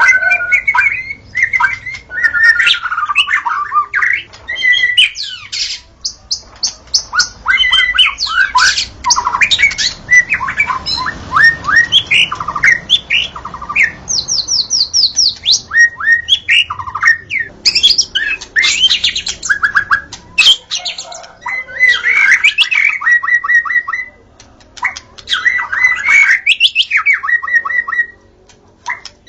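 White-rumped shama (murai batu) singing in full voice: a rapid, ever-changing run of whistles, fast trills and harsh chattering notes, broken by a few short pauses.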